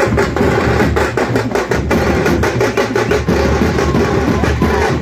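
A thappu (parai) frame drum troupe beating a fast, dense rhythm, the strokes coming several times a second without a break.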